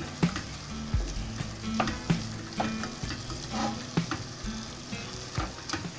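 Wooden spatula stirring a frying chicken masala in a stainless steel pot, scraping and knocking against the metal about once a second while the food sizzles.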